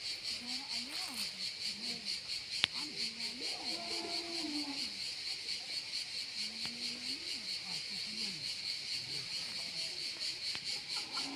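Insects chirping in a steady, high-pitched, rapidly pulsing chorus, with faint voices murmuring underneath and one sharp click about two and a half seconds in.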